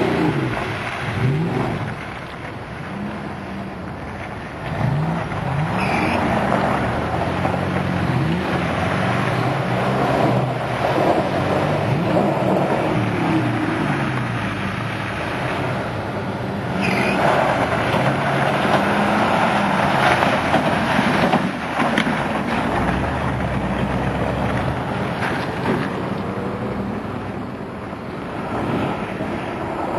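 Off-road truck engine revving up and down again and again while it works through rough terrain, its pitch rising and falling with each push of the throttle.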